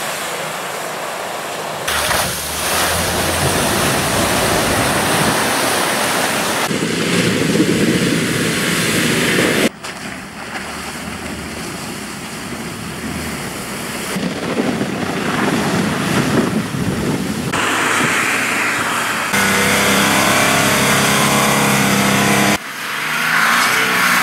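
4x4 off-road vehicle engines under load, driving through water and mud, with water splashing and wind on the microphone. The sound changes abruptly several times as one short clip cuts to the next, and in the later stretches an engine holds steady revs.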